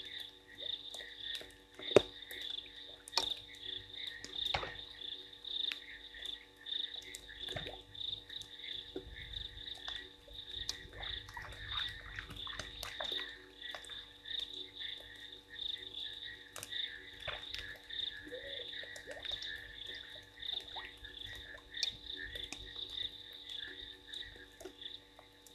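A chorus of frogs calling steadily in a dense, pulsing trill, with scattered sharp drips and ticks of rain and one louder tap about two seconds in.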